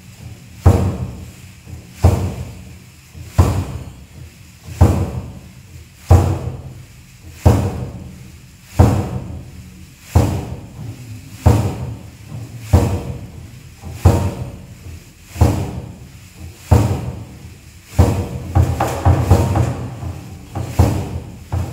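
Large rawhide-headed powwow-style drum struck in a slow, steady beat, about one deep boom every 1.3 seconds, each stroke ringing out before the next.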